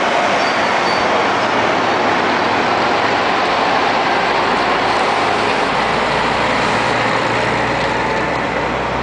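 Scania 360 truck's diesel engine pulling away at low speed, its low drone building from about halfway through as the truck passes. Under it runs a loud, steady rushing noise.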